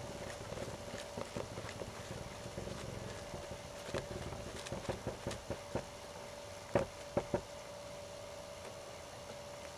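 A horse trotting on arena dirt: scattered hoofbeats, the loudest three close together about seven seconds in, over a faint steady hum.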